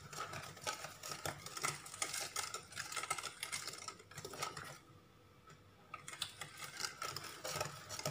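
Wire balloon whisk beating pancake batter in a stainless steel bowl: quick, rapid clicking and scraping strokes against the metal. The whisking pauses for a moment about five seconds in, then starts again.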